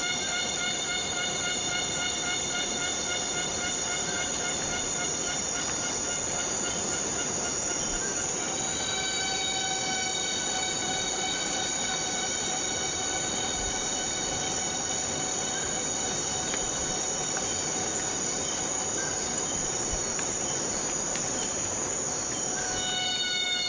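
Steady rain hiss in a tropical rainforest, with a continuous insect drone held on one steady high pitch. The drone shifts to a slightly different pitch about nine seconds in and changes back shortly before the end.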